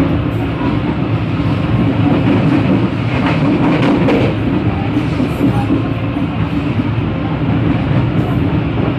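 Passenger train carriage running along the track, heard from the open vestibule between cars: a loud, steady rumble of wheels on rails that swells briefly a few seconds in.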